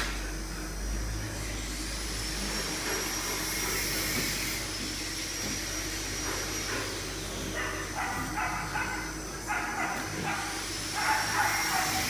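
Dogs barking, a run of short barks in the second half, over a steady low hum.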